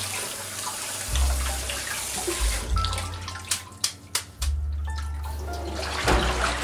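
Tap water running and splashing into a stainless steel pot as boiled thin white noodles in a bamboo colander are rinsed. The steady rush eases about two and a half seconds in, leaving splashes, drips and a few sharp knocks.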